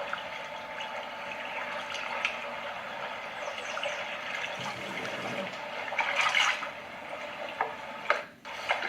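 Sea water lapping and sloshing at the surface, with a louder splash about six seconds in and a few sharp clicks near the end.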